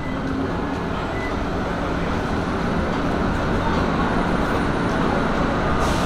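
Steady road traffic noise: cars and a pickup truck driving along a multi-lane road, with tyre and engine noise slowly growing louder.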